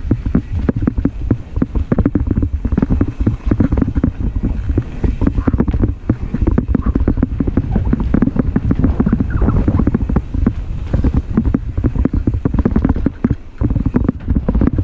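Mountain bike riding fast down a dirt singletrack: heavy wind rumble on the camera's microphone over a dense run of rapid clicks and rattles from the bike jolting over the trail.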